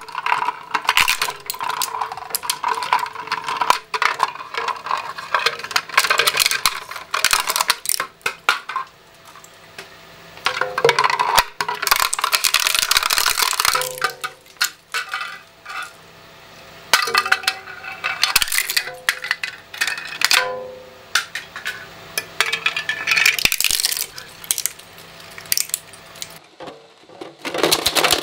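Twin-shaft industrial shredder's steel cutters cracking and crunching hard plastic toy-kitchen pieces, the fragments clattering against the blades and hopper, on and off with short lulls between pieces. A steady low motor hum runs underneath.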